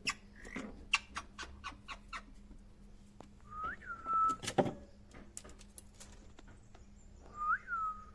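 Pet myna making a quick run of sharp clicks, then two whistles, each swooping up and then holding a steady note, with another loud click between them.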